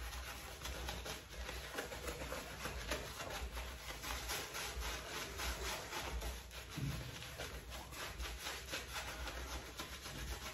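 Shaving brush scrubbing and swirling shaving soap into a lather on the face: a continuous bristly rubbing made of many quick strokes.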